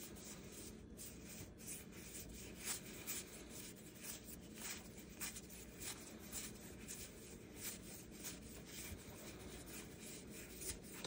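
A stack of 2023 Topps 206 NPB baseball cards being flipped through by hand, one card slid over the next. The sound is soft, irregular swishes of card stock rubbing against card stock, a few a second.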